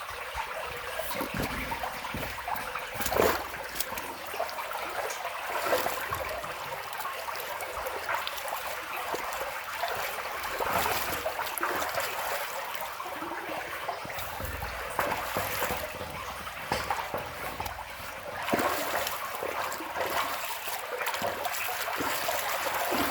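Water trickling and running steadily through a culvert pipe just cleared of a beaver blockage, the dammed pond draining.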